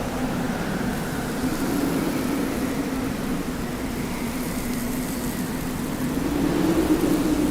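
Desert wind blowing steadily, with a low hollow tone that swells and rises slightly near the end.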